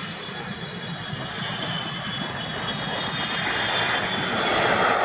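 Boeing 777-300ER jet airliner's GE90 engines and rushing air as it touches down and rolls out along the runway, the noise swelling louder over the last couple of seconds as the aircraft passes close by.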